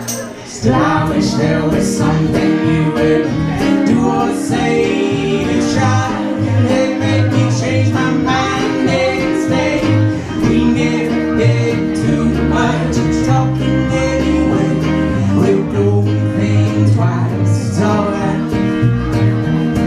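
Live music: guitar played with singing, in a country style. It comes in strongly just under a second in and runs on steadily.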